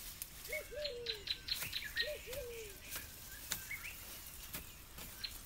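Wild birds calling: short high chirps and whistles, with a lower, arched two-note call heard twice in the first half. Scattered faint clicks and snaps of brush and twigs being pushed aside.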